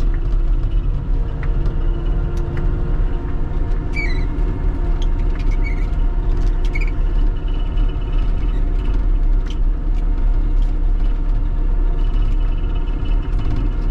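Large diesel engine of a self-propelled forage harvester running steadily under way, a loud low drone with steady humming tones, heard from inside the cab. A few short high chirps come between about four and seven seconds in.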